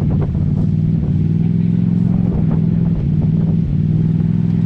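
Turbocharged side-by-side UTV engine running at a steady pitch, dipping slightly twice in the middle.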